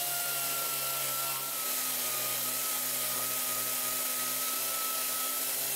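Handheld power sander with a sanding disc running steadily against a piece of wood: a constant motor whine over the rasp of the abrasive on the wood.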